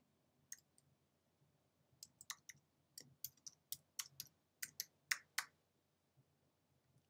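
Computer keyboard keys being typed: one keystroke, then a quick run of about a dozen sharp key clicks as a password is entered.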